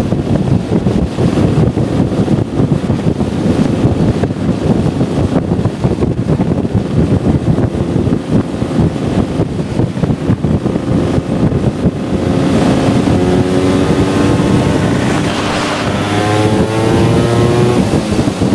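Vespa scooter ridden at speed, its engine half-buried under wind buffeting on the helmet-mounted microphone. About two-thirds of the way in the engine note comes through clearly and rises in pitch as the scooter accelerates, climbing again near the end.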